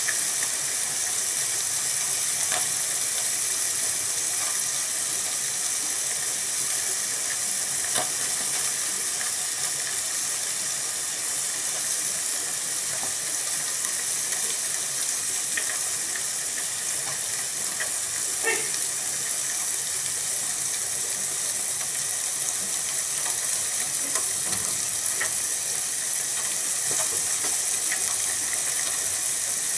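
Pan sizzling steadily over an open wood fire, with scattered sharp crackles and pops from the burning sticks.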